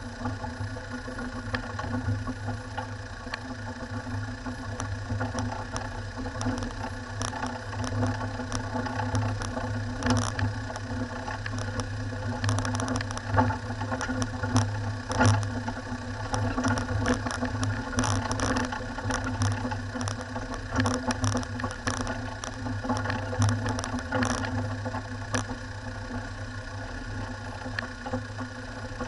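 Four-wheel-drive vehicle's engine running steadily at low revs on a rough gravel track, with frequent clicks and rattles as it jolts over stones.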